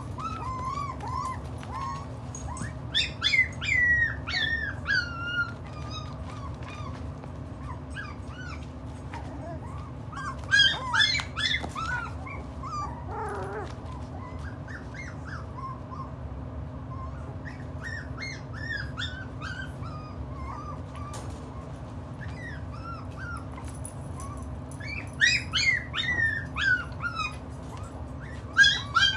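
Miniature pinscher puppies, about five weeks old, whining and yipping in high-pitched falling squeals. The whines come in clusters about three seconds in, around ten seconds and again near the end, over a steady low hum.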